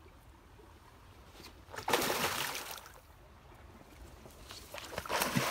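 Water sloshing and splashing twice, each time for about a second, as a trapped animal swims and struggles on its trap line, with a faint steady trickle of water underneath.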